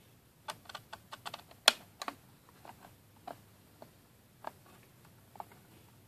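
Irregular small clicks and taps of a small screwdriver turning screws into a laptop's plastic bottom cover, with one sharper click just under two seconds in.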